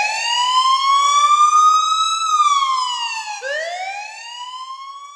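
Siren wailing: its pitch climbs slowly for about two seconds, slides down, then drops back low and climbs again about three and a half seconds in, growing fainter toward the end.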